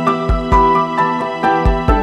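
Instrumental background music: sustained melodic notes over a low, thudding drum beat.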